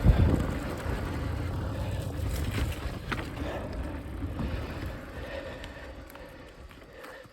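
Mountain bike rolling over a rough dirt trail: a steady rumble of tyres and frame with scattered rattles and knocks, opening with a hard jolt and easing off toward the end.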